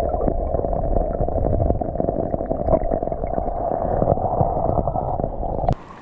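Loud, muffled rushing and gurgling of stream water, as heard with the camera dipped into the current. It cuts off abruptly near the end, leaving the quieter hiss of rain.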